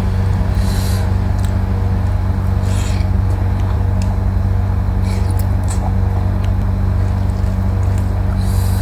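A loud, steady low hum, with a few brief soft eating noises over it as fingers pick at fried chicken and she chews.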